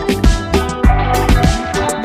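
Background music with electronic drums and a steady beat over a sustained bass line.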